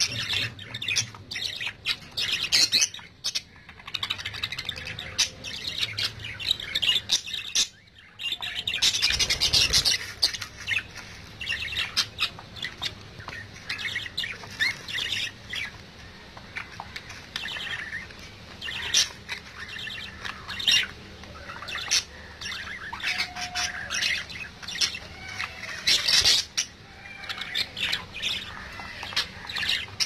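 Budgerigars chattering and squawking, a steady stream of short, high-pitched calls, with a louder run of calls about nine seconds in.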